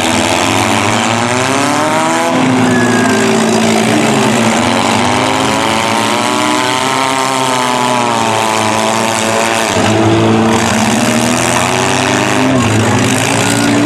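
Several small-car demolition derby engines running hard: one revs up in pitch early on, and another climbs and falls back over several seconds in the middle, with the other engines running under it.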